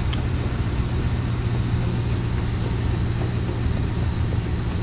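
Steady low hum of a vehicle running with the ignition on, heard from inside the car cabin.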